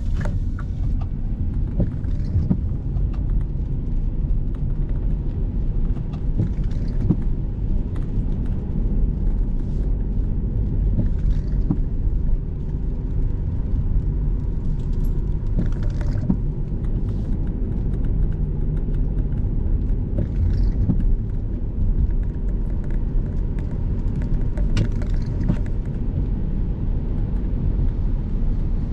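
A car being driven on a rainy day: steady low engine and road rumble. A faint swish comes back about every four to five seconds.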